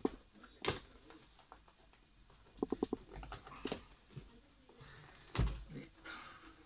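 Carbon-fibre vinyl wrap film being pressed and tucked around a panel edge by hand: scattered crackles and taps with short rapid squeaky runs of film rubbing, and a single heavier thump about five seconds in.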